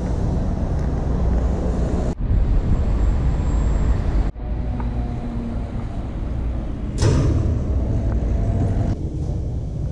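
Outdoor street noise: a steady heavy low rumble, broken twice by brief dropouts, with a sudden louder rise about seven seconds in.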